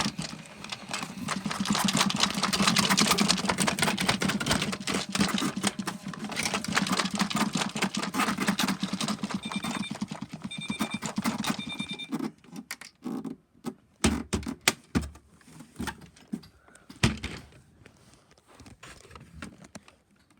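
Washing machine rattling hard with fast clattering over a low hum, then going quiet apart from scattered knocks. About two-thirds of the way through, three short electronic beeps sound about a second apart.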